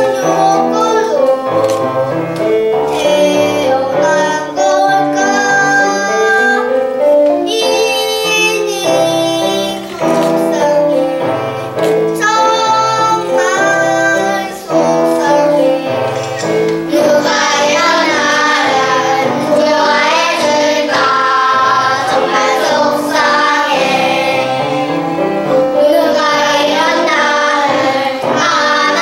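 Young children singing a song in Korean with instrumental accompaniment; the sound grows fuller, with more voices, about halfway through.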